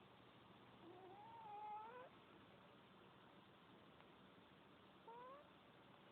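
Cat giving two soft meows over a faint hiss: a drawn-out one about a second in that rises at its end, and a short rising one about five seconds in.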